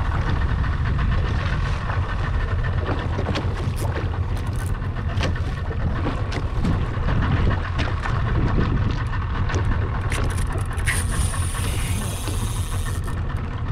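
Boat's engine running steadily with a low rumble, with scattered short clicks and knocks over it.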